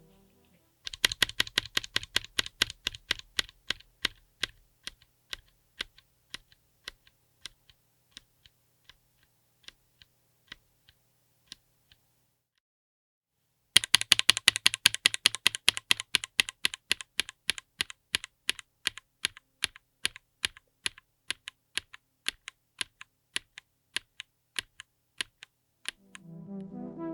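Mechanical keyboard fitted with BerserKeys Wolf Warrior all-POM linear switches on an FR4 plate, being typed on in two runs. Each run starts fast and loud, then thins out and grows quieter, with a short silent break about halfway through.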